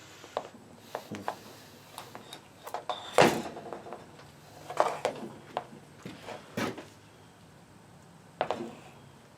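Scattered clicks and knocks of metal winch parts and tools being handled, the loudest knock about three seconds in.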